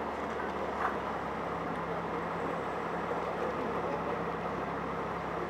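Tour boat's engine running steadily, a low hum under an even wash of noise; a second, slightly higher hum joins about a second and a half in.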